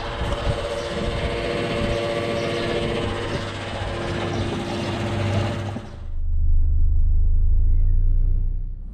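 Steady mechanical hum with several held tones over a hiss, as at a fuel stop. It cuts off abruptly about six seconds in, giving way to the deep, steady rumble of a car driving, heard from inside the cabin.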